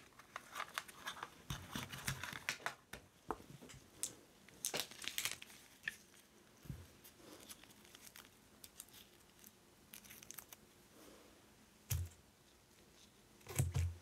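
Crinkling, crackling clicks as a thin piece of cured clear UV resin is peeled up and flexed between nitrile-gloved fingers, busiest in the first five seconds or so. Two soft low thumps near the end.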